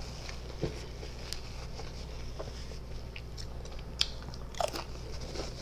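Close-up eating sounds: a few soft mouth clicks, then a potato chip bitten with a crisp crunch about four seconds in, followed by a quick run of crunches as it is chewed.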